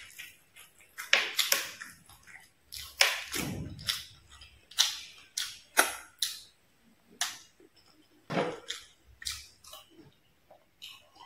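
Close-miked chewing of stir-fried fish and rice: irregular wet mouth clicks and smacks, several a second in places, with short pauses between mouthfuls.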